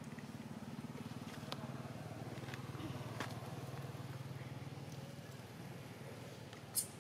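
A low, steady engine hum that fades out about five seconds in, with a few scattered sharp clicks and a louder click near the end.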